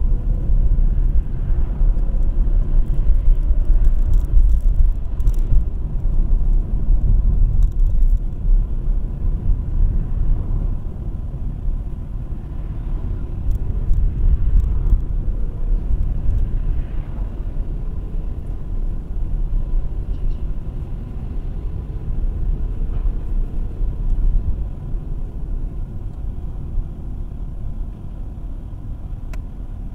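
Low, steady rumble of a car's engine and tyres while driving, heard from inside the cabin.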